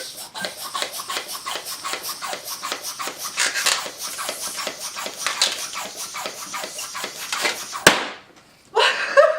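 Long latex modelling balloon squeaking and rubbing as it is stretched and knotted by hand, in a dense run of short rubbery strokes. A single sharp click comes about eight seconds in.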